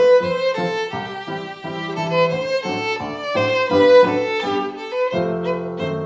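Music: a violin carries a melody of short, quickly changing notes over a lower accompaniment.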